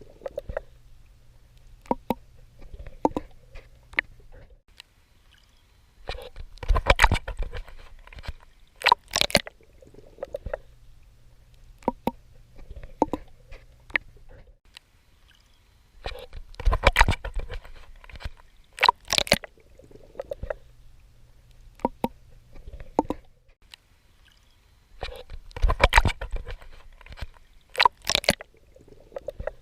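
Swimming strokes splashing through sea water, with small clicks and bubbling between them. Pairs of splashes about two seconds apart come back roughly every nine to ten seconds.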